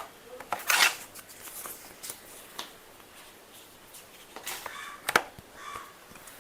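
Smartphone box and packaging being handled during unboxing: short rustles and sliding of cardboard and plastic with scattered clicks and taps, the longest rustle just under a second in and a sharp click about five seconds in.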